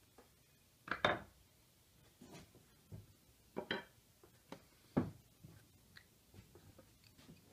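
Hand tools being handled on a wooden workbench: a few scattered knocks and clinks, the loudest about a second in and another about five seconds in.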